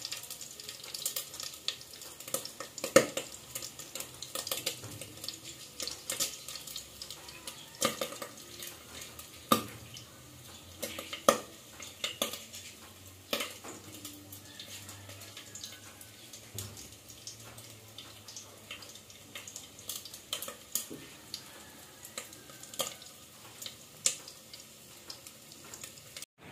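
Cookware and utensils clinking and knocking, with irregular sharp clicks scattered through, some louder than others, over a faint steady hiss.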